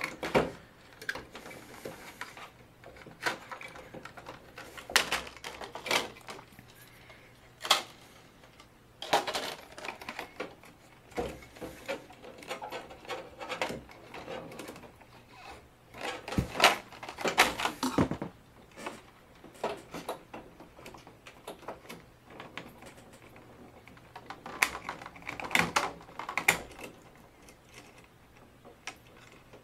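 Irregular clicks, taps and knocks of an LCD TV's power board being worked loose with a screwdriver, unplugged and lifted out of the TV's metal chassis.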